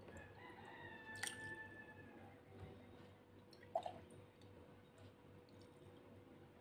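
Near silence: a rooster crows faintly in the distance, one call of about two seconds near the start, and two sharp clicks sound, the louder one a little before the middle.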